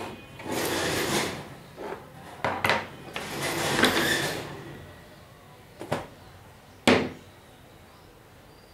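Hand tools, screwdrivers and a pair of pliers, being put down on a wooden tabletop: handling rustles and four sharp knocks, the loudest about seven seconds in.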